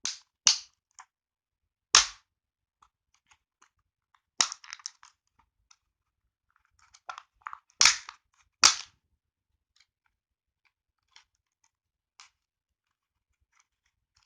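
Headphone packaging being opened by hand: a series of sharp snaps and crackles, the loudest cracks in the first nine seconds, then only a few faint ticks.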